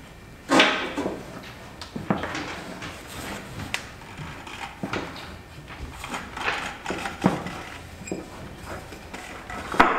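Hands forcing a rubber CVT drive belt down into the spread-open clutch sheaves of a Yamaha Viking side-by-side: irregular metal clunks, knocks and scraping. There is a sharp clunk about half a second in and another just before the end.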